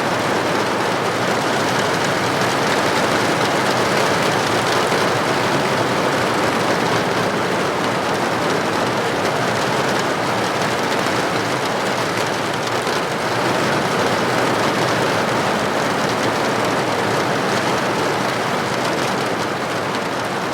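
Steady rain heard from indoors, an even hiss and patter without any change.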